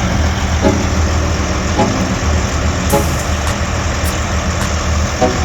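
Heavy diesel forestry machine running steadily with a low rumble, with a few short pitched blips over it.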